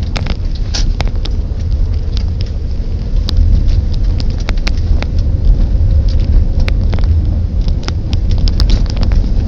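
Car driving on a rough, pothole-patched country road. The tyres and engine make a steady low rumble, with many short sharp clicks and knocks over it.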